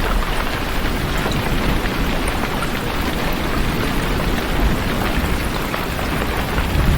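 Heavy rain falling steadily, a dense even hiss with a low rumble underneath and scattered faint drop ticks.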